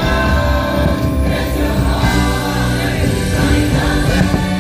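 Loud fireworks-show soundtrack music with a choir singing over sustained chords.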